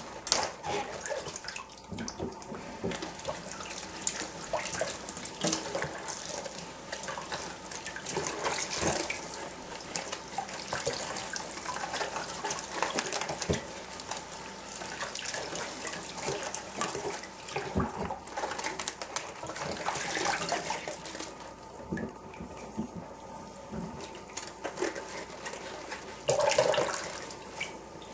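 Kitchen tap running onto baby cabbage leaves as they are rinsed by hand over a steel bowl of water in the sink, with uneven splashing and leaves being handled in the water.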